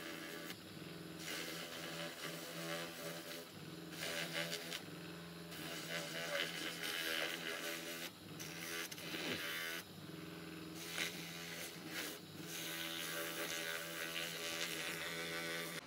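Motor-driven spindle spinning a sanding drum with a steady hum, while a carved wooden figurine is pressed against it again and again, each contact a rasping hiss of a second or two.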